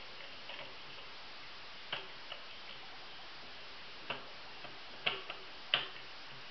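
3D-printed plastic finger engine clicking as a finger presses its piston plate to turn the crankshaft and flywheel: a handful of irregular, sharp plastic clicks, the loudest near the end.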